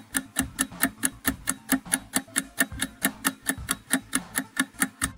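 Quiz countdown timer sound effect: fast, even clock-like ticking, about four to five ticks a second.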